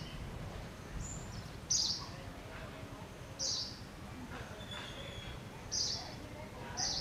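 A bird repeating a short, high call four times, one to two seconds apart, over a steady low background rumble.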